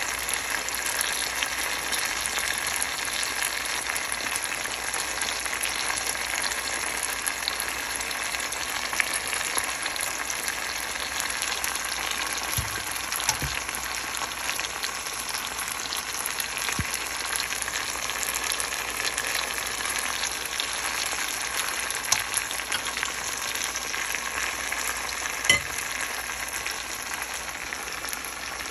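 Marinated whole chicken sizzling steadily as it fries in a little oil in a stainless-steel pan over medium heat, with a few faint taps.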